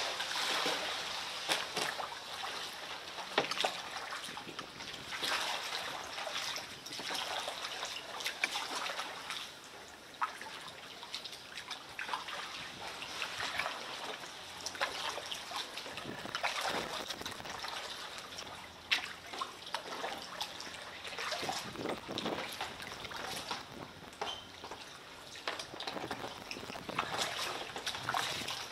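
Kayak paddling on calm water: water trickling and dripping off the paddle blades, with small irregular splashes as the blades dip in.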